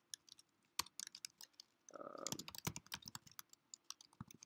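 Typing on a computer keyboard: soft, irregular key clicks as a terminal command is typed out.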